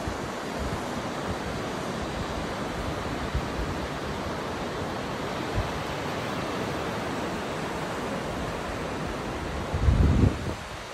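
Surf breaking and washing onto a sandy beach, a steady rush of waves, with wind blowing across the microphone. A brief louder low rumble near the end.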